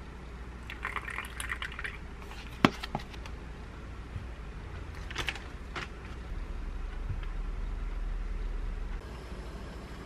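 Milk poured from a paper carton into a hollowed kabocha squash filled with egg mixture, then a sharp knock about two and a half seconds in, followed by a few lighter clicks of kitchen handling.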